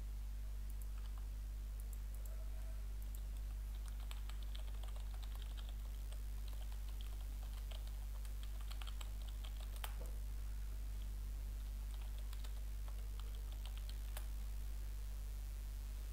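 Typing on a computer keyboard: irregular runs of key clicks, densest in the first half, with a few sharper single clicks. A steady low hum runs underneath.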